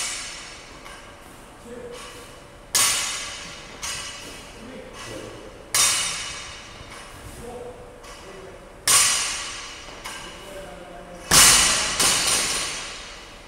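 Loaded barbell with bumper plates coming back down to the floor rep after rep during ground-to-overhead lifts. Four heavy thuds about three seconds apart, each with a clanging ring that dies away over about a second, and lighter knocks between.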